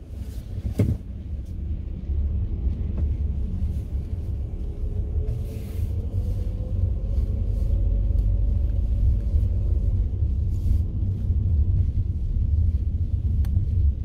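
Car driving slowly over a gravel lot, heard from inside the cabin: a steady low rumble of engine and tyres, with a faint engine note rising a little partway through and a single knock about a second in.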